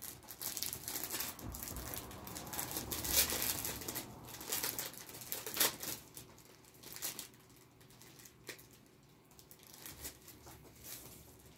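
Crinkling and rustling of a clear plastic bag and paper packaging being handled and pulled open to get out a sheet of stickers. It is loudest in the first half, with sharp crackles about three and five and a half seconds in, then fades to lighter, scattered rustles.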